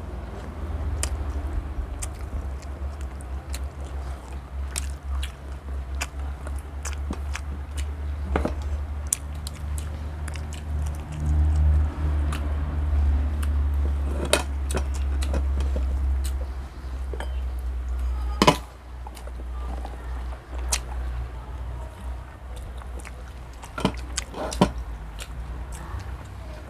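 Eating sounds: chewing with scattered sharp clicks, the loudest about two-thirds of the way through, over a steady low rumble.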